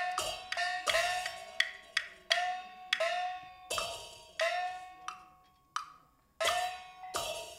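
Traditional percussion from the backstage ensemble of a Taiwanese glove-puppet show: a run of sharp strikes at an uneven pace, each ringing briefly and fading. There is a short pause about five to six seconds in before the strikes resume.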